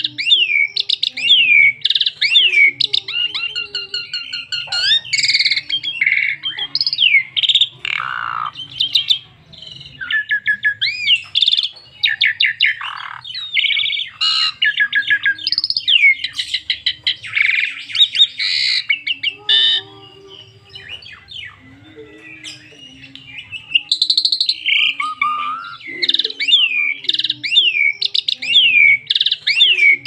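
Asian pied starling (jalak suren) singing a long, varied song of loud whistled glides, rapid trills and chattering phrases, with a brief quieter lull about two-thirds of the way through.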